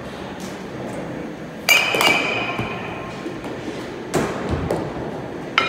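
Baseballs being struck by metal bats in batting cages: sharp pings that ring on briefly, two close together about two seconds in and another near the end, with duller knocks of balls hitting nets or fencing in between, echoing in a large hall.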